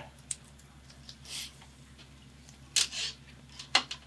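Wiring harness leads being handled in gloved hands: a few short clicks and brief rustles of plastic-covered wires, the sharpest near the end.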